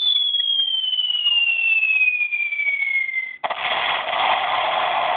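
Bomb-drop sound effect: a long whistle falling steadily in pitch for about three and a half seconds, then a sudden explosion that breaks into a rushing noise.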